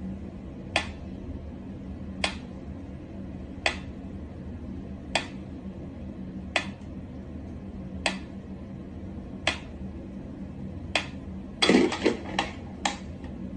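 Mechanical pyramid metronome ticking slowly, one sharp tick about every second and a half. About twelve seconds in, a brief cluster of louder knocks and clatter.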